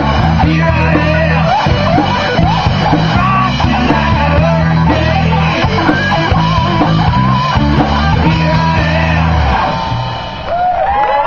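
Live hard rock band playing the end of a song: distorted electric guitar lead over bass and drums. The band stops about nine and a half seconds in, and the crowd starts cheering and whooping.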